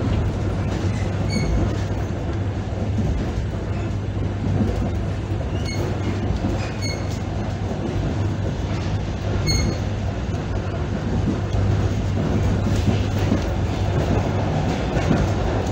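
ER9p electric multiple unit heard from inside the passenger car while running at speed: a steady rumble of wheels on rails with a constant low hum. A few short, high squeaks stand out over it.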